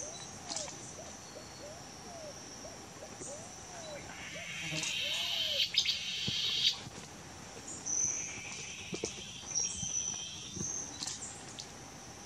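Yapacana antbird singing: a run of short, low notes, each rising and falling in pitch, about one every second, which stops about five seconds in. Behind it a steady high insect drone and buzzing insects, with a few sharp clicks in the middle.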